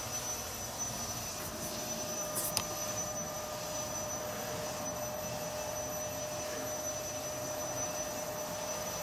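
Powermatic wood lathe running steadily with a large log turning on it: an even motor hum with a steady tone.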